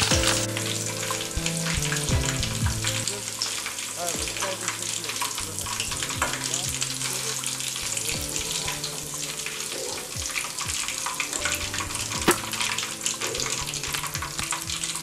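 Chicken leg pieces deep-frying in hot oil in a kadai: a steady sizzle full of small crackles and pops, with one sharp tap a few seconds before the end.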